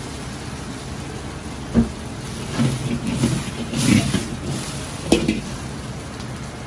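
A cake of egg noodles sizzling in oil in a large carbon-steel wok over a gas burner that runs steadily underneath. The wok knocks and scrapes against the burner ring several times as it is swirled and tilted, sharpest about two, four and five seconds in.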